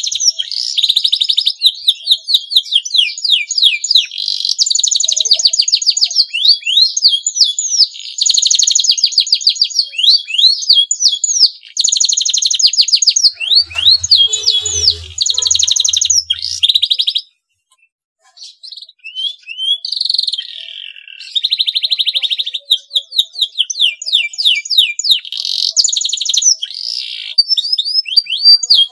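Male domestic canary in breeding condition singing: fast rolling trills and rapid series of high chirps, with a short break about two-thirds of the way through.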